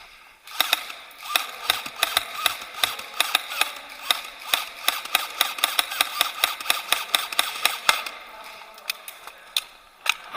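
Airsoft guns firing: an uneven, rapid string of sharp shots, several a second. It starts about half a second in and stops about eight seconds in.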